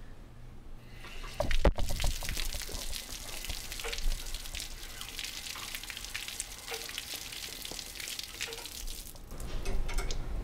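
A couple of sharp knocks about a second and a half in, then a steady hissing, spattering spray of water at the spot welder's lower electrode, which stops about nine seconds in.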